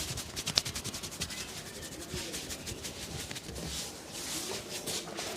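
Hands rubbing briskly over hair and skin in a head massage, a rapid run of dry swishing strokes, with one sharp click about half a second in.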